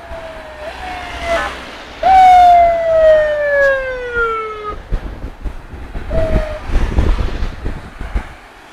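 Vehicle siren: a few short tones, then a loud wail about two seconds in that falls steadily in pitch for nearly three seconds, and a short blip later. Vehicle engine noise rumbles past in the second half.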